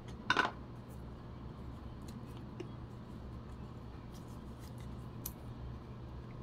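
Small plastic bottle of gun oil handled and its nozzle cap worked open: a brief rustle about a third of a second in, then faint scattered clicks.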